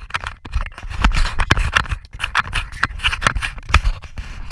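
Cabin rattling and knocking as a vehicle drives slowly over a rough, bumpy dirt road: a dense, irregular clatter of sharp clicks and knocks over a low rumble of engine and tyres.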